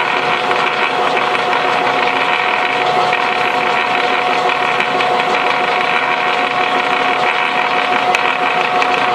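Hanomag Kommissbrot gearbox running in reverse gear on a test run after repair, its gears meshing with a steady whine over a dense mechanical whir.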